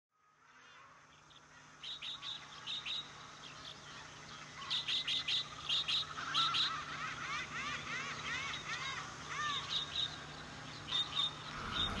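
Birds chirping and calling: clusters of short high chirps, and a run of repeated rising-and-falling whistled notes in the middle, over a faint steady low hum.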